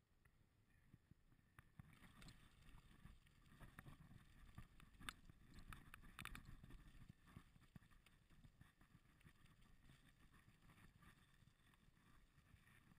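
Faint rumble and crackle of bicycle tyres rolling over a gravel path, starting about two seconds in as the smooth asphalt gives way to gravel. Scattered clicks and small rattles run through it.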